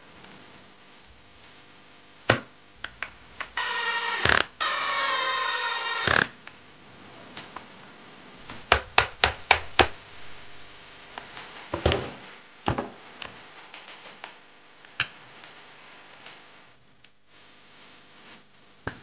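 Assembly handling of RC monster-truck parts: scattered clicks, taps and knocks as plastic and metal parts are picked up, set down and fitted together. About three and a half seconds in, a harsh whirring, grating sound with a wavering pitch lasts for about two and a half seconds.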